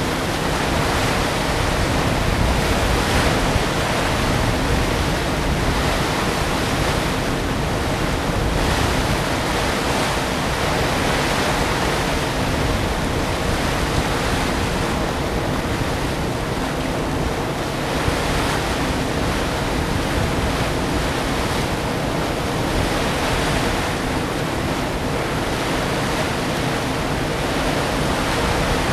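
Steady wind rushing and buffeting on the microphone, with a faint steady low hum underneath.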